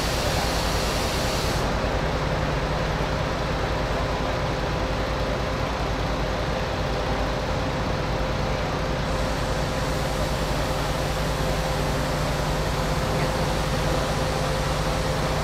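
A heavy vehicle's engine running steadily with a constant hum, no change in pitch or level.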